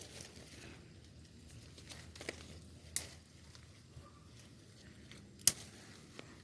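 Footsteps through dry forest undergrowth: faint rustling with a few sharp snaps, the loudest about five and a half seconds in.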